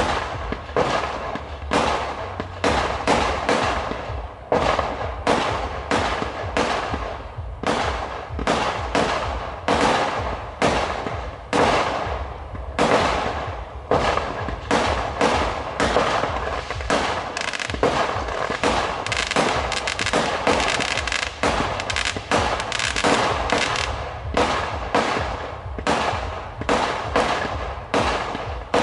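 Aerial fireworks bursting in a rapid, unbroken series of sharp bangs, about two or three a second, each trailing off briefly.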